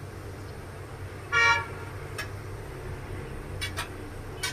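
A single short vehicle horn toot a little over a second in, the loudest sound here, over the steady sizzle of puris deep-frying in oil. A few light metallic clicks come from the steel slotted spoon against the pan.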